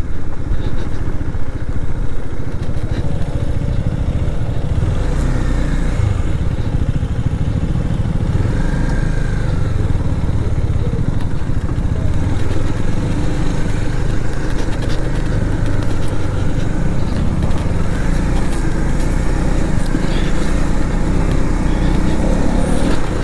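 KTM Duke 250's single-cylinder engine running as the motorcycle rides along, under a steady low rumble.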